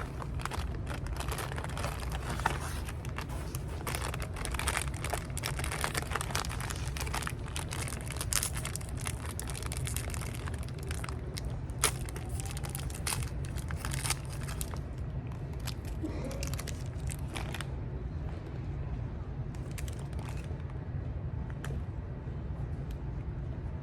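Handling noise: crinkling and crackling with many small clicks over a steady low hum, the clicks thinning out after about eighteen seconds.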